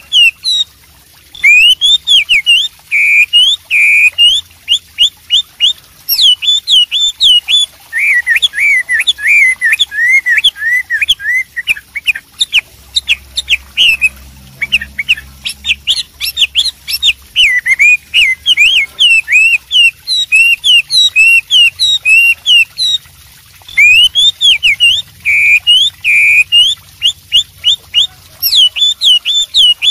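Chinese hwamei singing loudly in full song: a long, fast run of varied whistled notes that slide up and down, with phrases repeated and brief pauses between runs.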